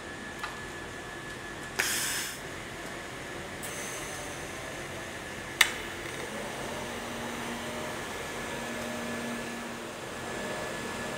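InFocus high-power TIG welding torch on an automated seam welder. A short hiss comes about two seconds in, and a sharp crack about five and a half seconds in as the arc strikes. After that the argon-shielded arc burns at 255 A with a steady hiss and a low hum.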